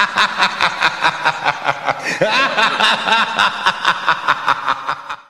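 A high-pitched cackling laugh, a rapid string of 'ha-ha' pulses about four or five a second, that cuts off abruptly near the end.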